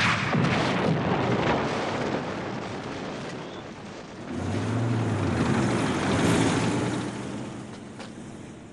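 Cartoon explosion sound effect: a sudden blast followed by a long noisy rumble, swelling again with a deep rumble about four seconds in, then fading away near the end.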